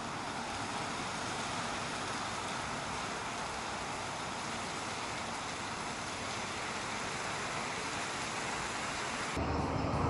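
Steady outdoor background noise with no distinct events. About nine seconds in it changes abruptly to a louder, deeper noise.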